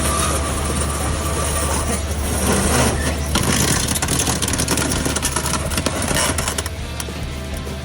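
Excavator's diesel engine running steadily, with noise across the range from the machine working.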